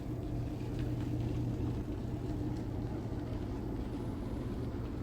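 Motor boat's engine running at a steady speed, a constant low hum.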